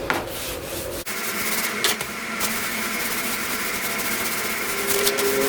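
Stain-soaked grout sponge rubbing over wood. About a second in the sound changes abruptly to a steadier hum with a few light clicks.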